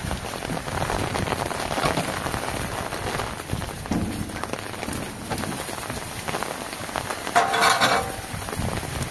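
Steady rain falling and pattering on surfaces, with a short, louder sound carrying a held tone about three-quarters of the way through.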